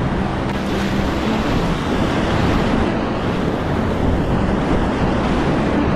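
Whitewater of a mountain river rushing: a loud, steady noise with no breaks.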